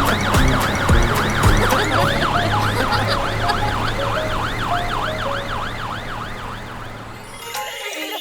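Cartoon fire engine siren sounding a rapid rising-and-falling yelp, about two and a half cycles a second, over a low steady hum. It grows gradually fainter and stops shortly before the end.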